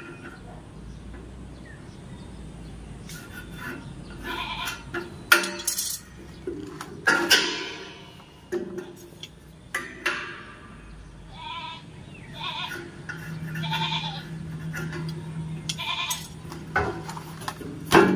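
Goats bleating several times, short wavering calls. A few sharp clicks and knocks are mixed in, and a steady low hum comes in about two-thirds of the way through.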